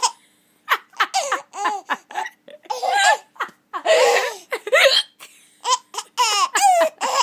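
A baby laughing in a string of short, high-pitched bursts with brief gaps between, while she has the hiccups.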